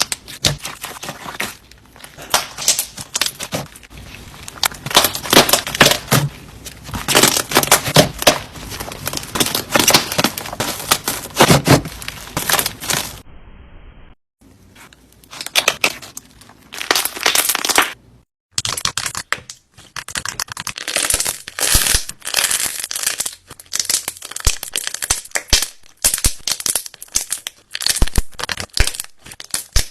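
Slime being squeezed and worked by hand, giving dense crackling and popping clicks, broken by short cuts about 14 and 18 seconds in.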